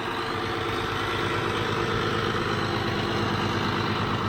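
1976 International Harvester 886 tractor's six-cylinder diesel engine idling steadily.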